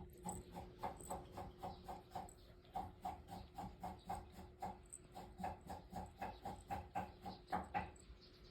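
A domestic cat chattering: a quick, even run of short clipped calls, about four or five a second, that stops near the end. Cats make this sound while watching birds they cannot reach.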